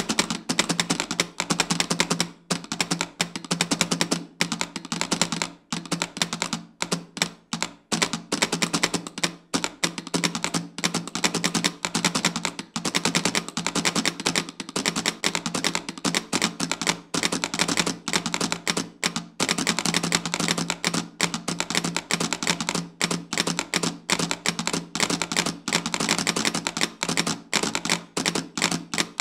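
A row of Morse telegraph straight keys clicking rapidly and continuously in uneven patterns, the levers snapping down and up as they key out tweets in Morse code. A steady low hum runs beneath the clicks.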